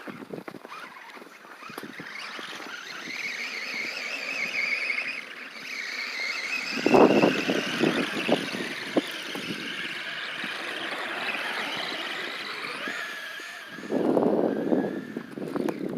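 Electric RC rock crawler's motor and geared drivetrain whining, the pitch wavering up and down with the throttle, while it crawls through snow. A rougher, louder noise comes in about seven seconds in and again near the end.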